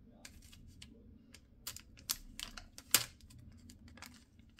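Paper stickers and planner pages being handled: irregular light clicks, taps and rustles, with one sharper tap about three seconds in.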